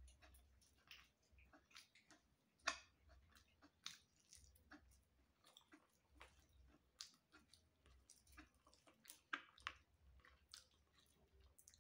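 Faint chewing and wet mouth clicks of someone eating rice and fried salted fish by hand, with scattered soft ticks and a few sharper ones.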